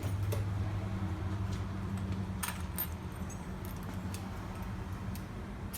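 Keys and metal lock cylinders clinking as they are handled, a few short separate clicks, over a steady low hum.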